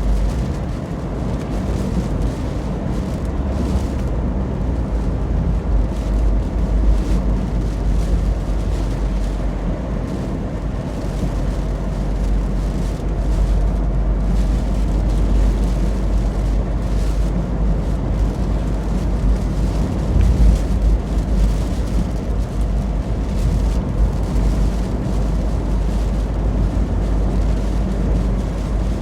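Hurricane-force wind buffeting the microphone: a loud, steady, deep rumble that swells and eases in gusts, strongest about two-thirds of the way through.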